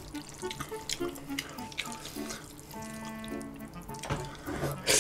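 Wet, sticky sounds of saucy jjolmyeon noodles being stirred and lifted with wooden chopsticks, with small clicks of the chopsticks and some chewing, over soft background music.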